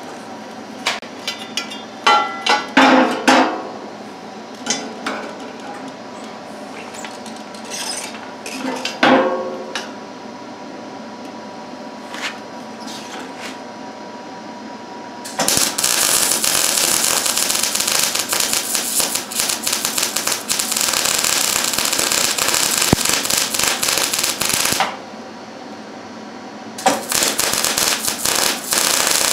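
Steel parts clank and knock as they are handled, some with a short metallic ring. Then an electric arc welder runs a bead with a steady crackle for about ten seconds, stops briefly, and strikes again near the end.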